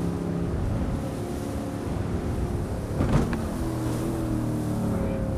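Motorboat engine running at speed through river rapids over the rush of water, with a sudden loud thump about three seconds in, after which the engine note changes.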